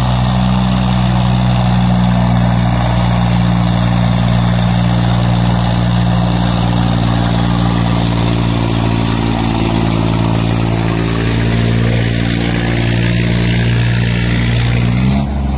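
Sonalika DI-35 tractor's diesel engine running steadily under heavy load, dragging a disc harrow through ploughed soil.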